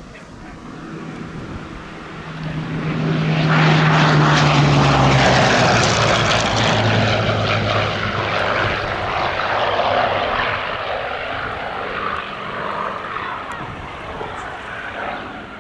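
Hawker Sea Hurricane's Rolls-Royce Merlin V12 engine and propeller on a close flypast. The sound swells as the fighter approaches, and the engine note drops in pitch about five seconds in as it passes, then slowly fades as it flies away.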